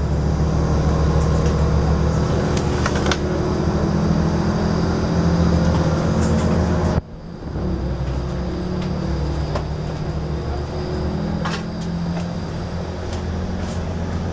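Alstom Coradia LINT train's running gear and drive humming low and steady, heard from inside the passenger cabin as it pulls out of a station. About halfway the sound drops out abruptly for a moment, then carries on a little quieter.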